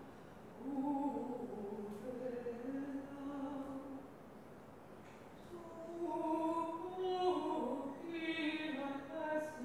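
A mezzo-soprano singing medieval plainchant alone: a single slow line of held notes that glide from pitch to pitch, with a break between phrases about four seconds in.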